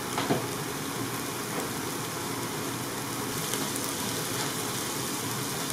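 Diced onion, bell pepper and celery sizzling steadily as they sauté in an Instant Pot's stainless steel inner pot.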